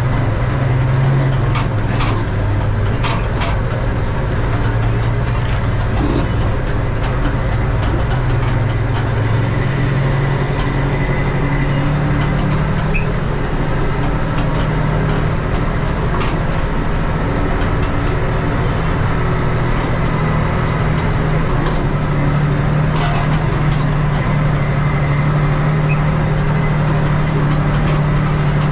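Valmet 118 tractor's diesel engine running steadily under load through a straight exhaust pipe while pulling a seed planter, its note stepping up a little about a third of the way in. A few short clicks and knocks over it.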